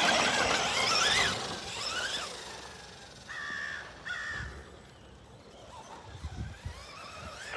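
Electric RC truck's brushless motor and steel-geared driveline whining as it revs up and falls off twice in the first two seconds; the owner hears more driveline noise from the new metal diff gears. Then a crow caws twice, about three and a half and four seconds in.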